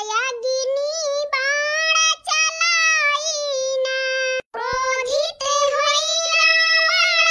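A high-pitched cartoon character's voice singing a song in long, held notes, with a brief break about four and a half seconds in.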